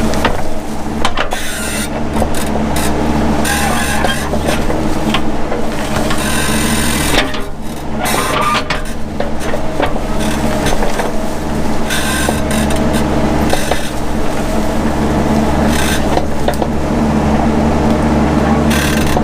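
Mini excavator engine running steadily under working load, with irregular crackling and scraping from brush and wood being cleared.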